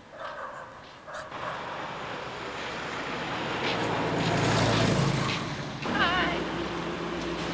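Street traffic: a motor vehicle passing, its noise swelling to its loudest a little past the middle and then fading. Near the end a woman laughs briefly.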